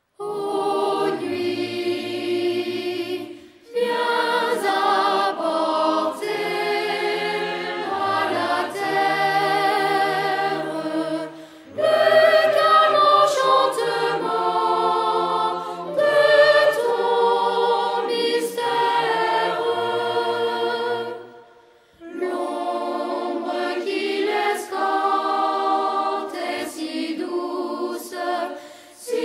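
Choir singing sustained chords in long phrases, with short breaks about 4, 12 and 22 seconds in.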